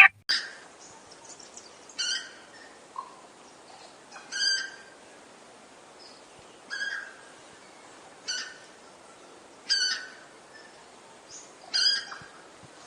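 A bird giving a short, harsh call over and over, about once every two seconds, against a faint steady hiss.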